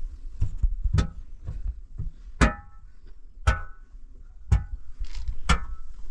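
Repeated sharp strikes of a hand tool, about one a second, each followed by a brief ringing tone.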